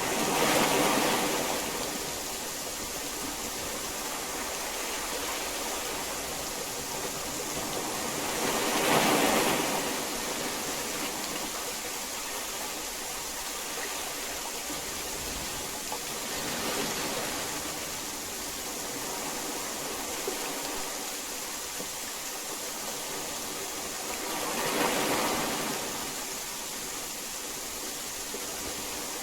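Heavy rain falling as a steady hiss, swelling louder for a couple of seconds about every eight seconds.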